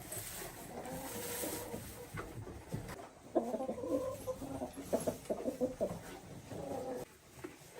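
Chickens clucking: a run of short, choppy calls starting about three seconds in and stopping shortly before the end.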